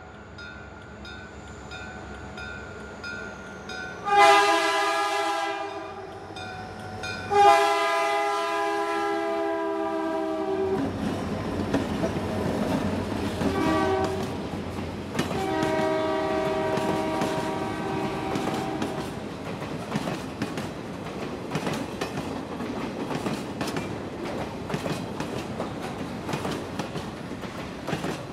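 A diesel freight locomotive's multi-note air horn sounds long, long, short, long, the grade-crossing warning, as the train approaches. The boxcars then rumble past with a rhythmic clickety-clack of wheels over the rail joints.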